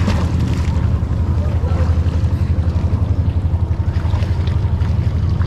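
Boat engine running steadily with a rapid low throb.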